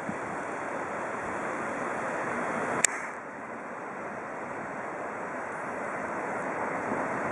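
Strong wind rushing steadily over the microphone, with one sharp click about three seconds in.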